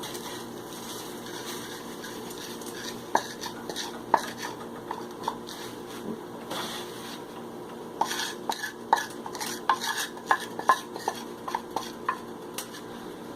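A metal utensil stirring and clinking against a frying pan of hot oil with curry leaves and thin poha, over a low steady frying sizzle. The clinks are scattered at first and come quick and frequent in the second half.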